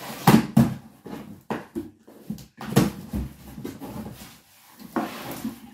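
Large cardboard shipping box being handled and opened by hand: irregular scrapes, rips and knocks of cardboard and tape, with a longer rustle near the end.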